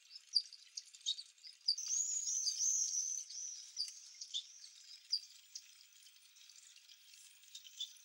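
Small aviary finches chirping with short, high calls. About two seconds in, one bird sings a quick run of looping, warbled notes lasting about a second and a half, the loudest part.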